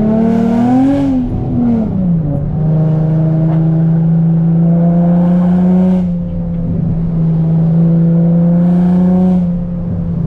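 Infiniti G35 coupe's VQ-series V6 through a loud aftermarket exhaust, heard from inside the cabin. The revs climb in the first second, fall away by about two seconds in, then pull again at a steady, slowly rising pitch. It eases off briefly around six seconds in and again near the end.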